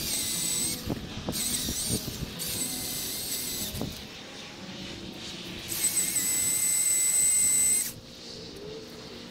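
Milwaukee M18 Fuel battery chainsaw cutting into a tree in four bursts of high electric whine. The last burst is the longest and loudest, about two seconds, and a few short knocks fall between the bursts.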